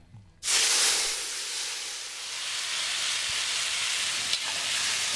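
Steamed ash gourd cubes hitting hot oil in an iron kadai: a loud sizzle starts suddenly about half a second in and carries on steadily as they fry.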